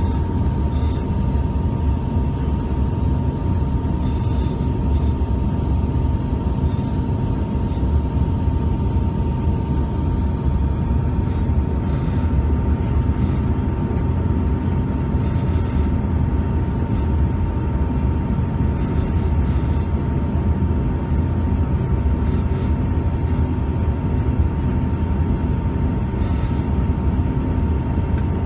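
Cabin noise of a Bombardier CRJ-200 in flight: a steady low rumble of its rear-mounted GE CF34 turbofans and the airflow past the fuselage, with a steady high whine over it. Faint light ticks and rattles come now and then.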